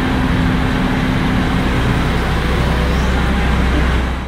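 Steady low rumble of a small passenger ferry's engines under way. A steady hum over it drops out about two seconds in.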